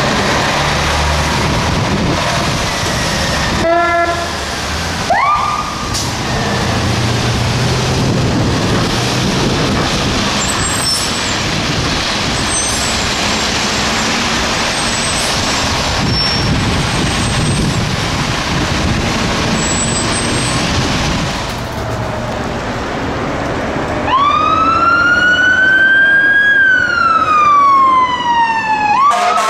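Fire truck responding through traffic: engine and road noise, a short horn blast about four seconds in and a brief siren chirp just after it. Near the end a siren winds up quickly and then slowly falls in pitch.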